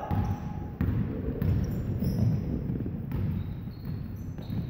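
Basketball play on a hardwood gym floor: players' running footsteps and short high sneaker squeaks, with the ball thudding as it is dribbled a few times.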